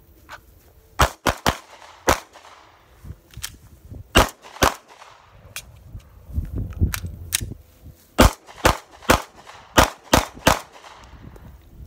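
Handgun fired in two strings of six shots, with a pause of about three seconds between them for the reload.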